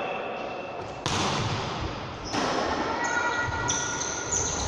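Indoor ball game in a sports hall: a ball hits hard twice, about one second and two and a half seconds in, amid short squeaks and players' voices echoing in the hall.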